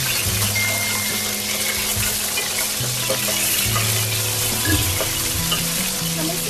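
Raw chicken pieces sizzling steadily in hot oil in a metal karahi while being stirred with a wooden spoon, over soft background music with low held notes.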